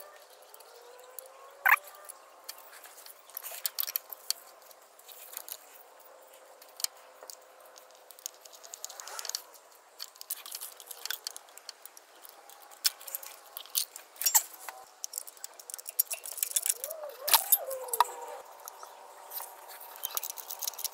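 Irregular small metallic clicks and clinks of a socket and 10 mm bolts being worked by hand, as the bolts of a PCV breather box are started and tightened against the engine block.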